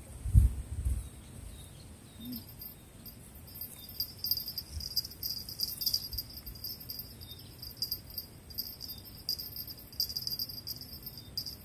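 Insects chirring steadily in a high, pulsing trill, coming in about two seconds in. A few low thuds sound in the first second.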